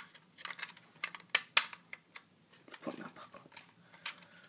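Hard plastic clicks and taps as a Lego brick model is handled: a scattering of sharp clicks, the two loudest close together about a second and a half in.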